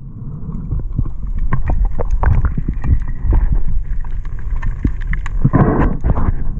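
Water sloshing and splashing against the camera at the sea's surface, with a steady low rumble and many small knocks, and a heavier rush of noise near the end.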